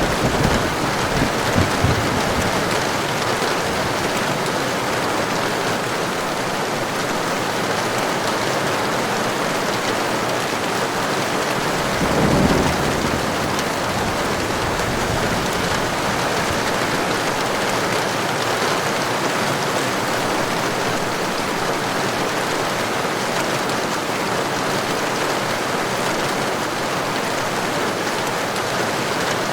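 Heavy rain falling steadily, with low rolls of thunder: brief rumbles just after the start and a stronger one about twelve seconds in.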